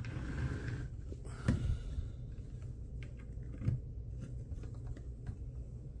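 Small screws being turned by hand with a precision screwdriver into a plastic PC fan frame: faint scraping and ticking with a couple of sharper little clicks, about a second and a half in and again near four seconds, over low handling noise.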